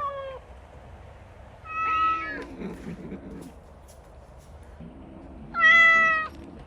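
Kitten meowing: the tail of one meow at the start, a clear meow about two seconds in, and a louder, longer meow near the end.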